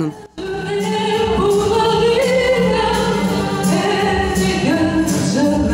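A woman singing into a microphone with a small live band of violins, guitar and drums, holding long notes; the music starts about a third of a second in.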